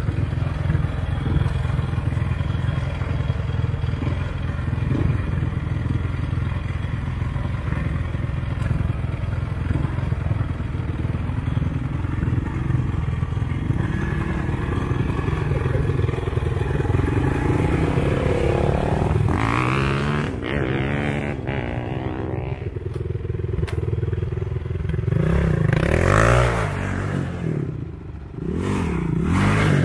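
Vehicle engines running steadily as a pickup truck tows a quad on a rope to bump-start it. In the last third an ATV engine revs up and down several times.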